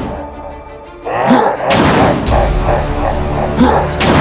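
Background music with two sharp cartoon explosion sound effects over it, one about a second and a half in and one near the end. The music dips almost out for a moment near the start.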